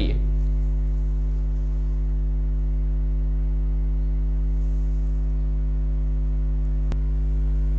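Low, steady electrical hum with a row of evenly spaced buzzy overtones, unchanging throughout; a single sharp click about seven seconds in.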